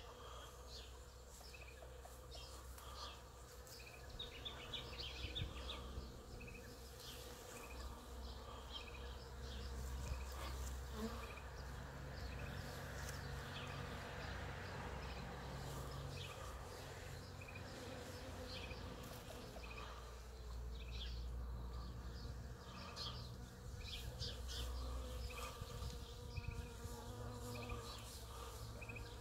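Bees buzzing steadily around apple blossom, with short high chirps scattered throughout.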